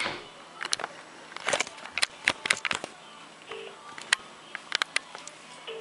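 Several sharp clicks and taps. Then a British telephone ringing tone, a low two-tone burr, sounds from a mobile phone as a call is placed: once briefly about midway, and as a double ring near the end.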